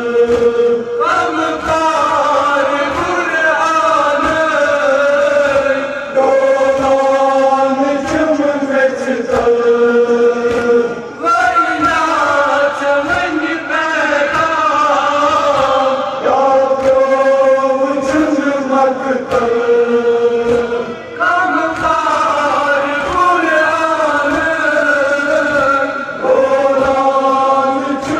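A Kashmiri noha, a Muharram lament, chanted in long sung phrases by male voices with mourners joining in, over a steady rhythm of chest-beating (matam).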